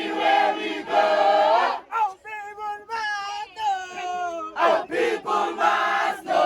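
A group of people singing and chanting together in short, loud phrases with brief breaks between them.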